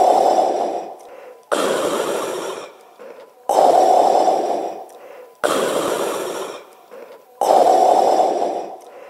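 Loud, rasping, mask-like breathing in a slow, even rhythm, one breath about every two seconds, inhales and exhales alternating: a Darth Vader-style respirator breathing effect.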